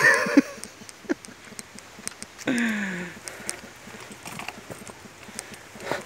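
Footsteps and handling clicks on a leaf-littered forest trail, with a short vocal exclamation at the very start and a drawn-out voice falling in pitch about two and a half seconds in.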